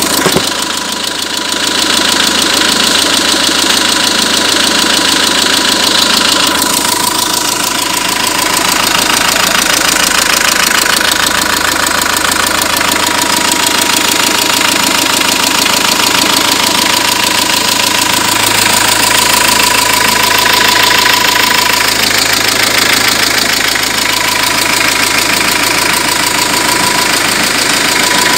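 Renault 1.9 dCi four-cylinder turbodiesel engine running steadily, with a thin high whine through much of it. This is the engine noise that the owner says began after switching the engine oil from Elf to Shell.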